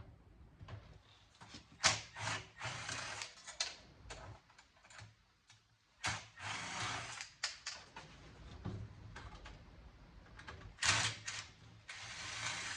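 A chisel or pry tool working against the sheet-steel casing of a cable box: three rounds of a sharp knock followed by a second or two of metal scraping.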